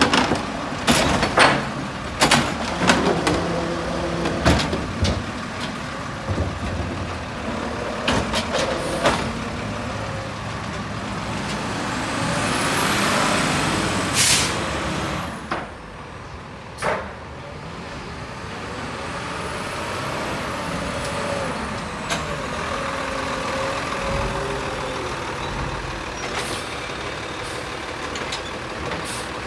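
Crane Carrier (CCC) automated side-loader garbage truck: the arm dumps a recycling cart with a run of clattering bangs over the first several seconds while the diesel engine runs. About halfway through comes a short loud air-brake hiss, followed by a smaller one, and then the engine runs steadily as the truck moves on.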